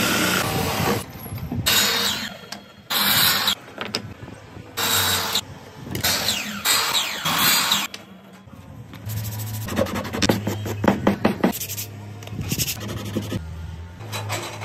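Power tools cutting wood in a string of short loud bursts: a cordless drill boring into a wood block with a spade bit, then a miter saw cutting. About halfway through a steadier low hum with rapid clattering clicks takes over.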